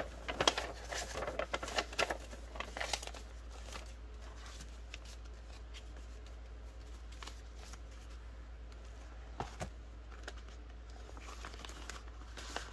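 Paper and plastic banknotes rustling and crinkling as they are handled and folded, busiest in the first few seconds, then quieter handling with a few light clicks and taps.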